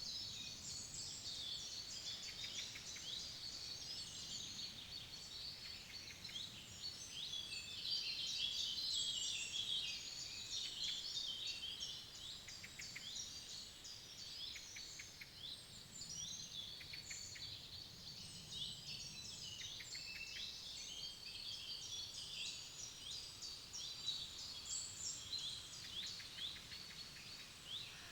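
Several forest songbirds singing at once in a dense, overlapping chorus of chirps and trills, busiest about eight to eleven seconds in, over a faint low background rush.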